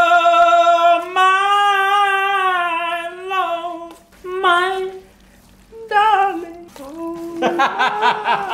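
A voice singing long, drawn-out high notes with no accompaniment, then a few short sung phrases. Laughter and talk come in near the end.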